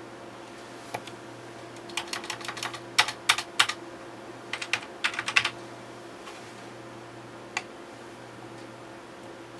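Typing on the keyboard of an Acorn RiscPC: a quick run of keystrokes between about two and five and a half seconds in, entering a filename, with a single click shortly before and another near the end.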